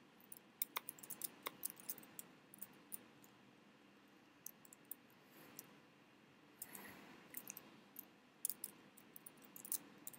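Computer keyboard being typed on: faint, irregular key clicks in short runs, with a sparser stretch in the middle.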